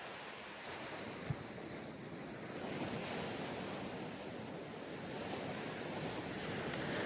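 Ocean surf breaking and washing up the beach: a steady rushing noise that swells a few seconds in as a wave comes in. A single brief low bump about a second in.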